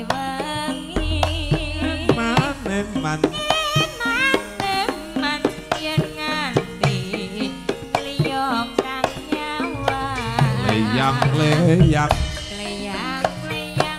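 Javanese gamelan music with busy kendang hand-drum strokes under a female sinden's singing, whose voice wavers and slides in ornamented lines over sustained low gong-like tones.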